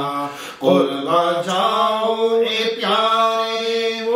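A man's voice singing an Urdu devotional song (manqabat) in long held, ornamented notes, with a short break for breath about half a second in.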